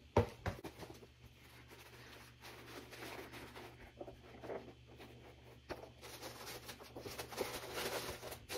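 Faint rustling, scraping and handling noises, with one sharp knock just after the start, as sneakers are put back into their box.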